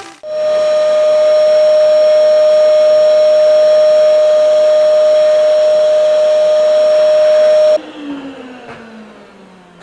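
Vacuum cleaner switched on, running loud and steady with a high whine, then switched off about eight seconds in, its motor winding down with a falling pitch.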